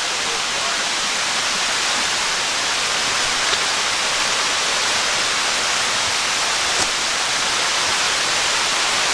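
Waterfall: a steady rush of falling water, with a couple of faint clicks.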